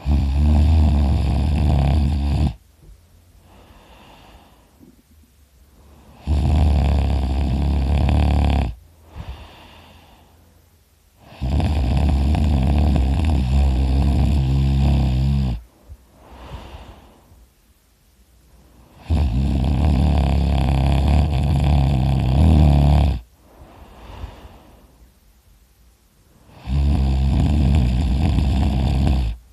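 A person asleep on their side with their mouth open, snoring loudly in long, buzzing snores on each breath in, five times, with softer breaths out between them.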